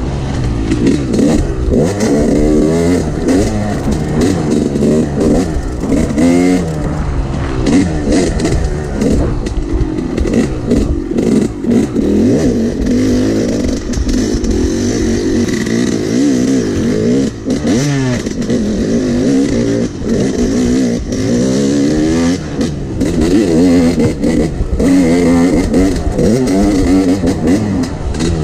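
Yamaha YZ250X two-stroke single-cylinder dirt bike engine revving up and down over and over as it is ridden hard, heard from on the bike.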